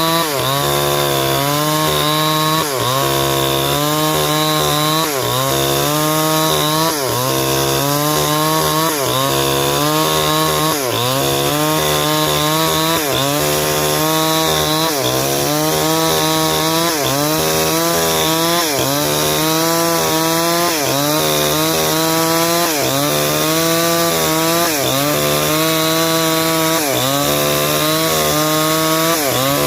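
Stihl 070 two-stroke chainsaw running at full throttle while ripping a log lengthwise into beams. Its pitch dips briefly and recovers about once a second as the chain bites under load.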